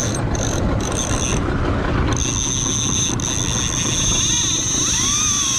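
Fishing boat's engine running steadily at slow trolling speed, with wind and water noise over it.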